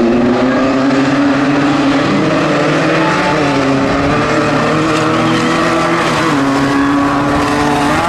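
Off-road race buggies' engines running hard at speed. The pitch drops about six seconds in and climbs again near the end.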